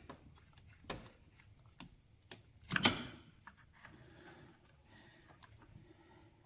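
A handful of sharp metal clicks and taps from needle-nose pliers and a pick working a hose clamp off a stuck heater hose, the loudest about three seconds in.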